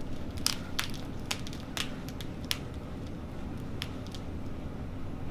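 Handling noise as a chiropractic Y-strap is set up for a spinal decompression: a scattered run of small clicks and crackles over a low steady hum.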